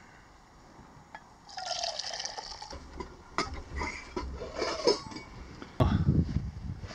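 Hot cheese soup ladled and poured into a metal cup, with a few clinks of the ladle against the cup. About six seconds in, a louder low rumble of handling noise takes over.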